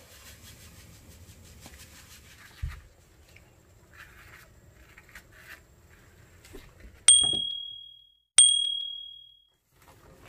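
Faint brush scrubbing on a stainless steel sink drain, then two bright bell-like dings about a second and a half apart, each ringing and fading away. The dings are the loudest sound.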